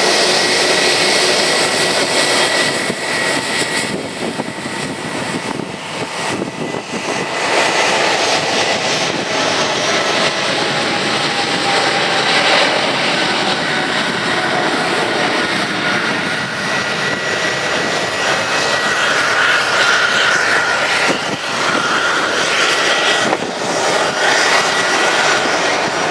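Boeing 777-300ER's two GE90-115B turbofan engines at takeoff thrust through the takeoff roll and lift-off: loud, steady jet noise with a thin high whine running through it.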